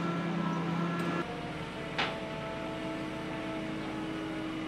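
Truck-mounted crane's diesel engine running steadily under a lift, a steady hum with held tones that shifts a little about a second in. A brief sharp sound stands out about two seconds in.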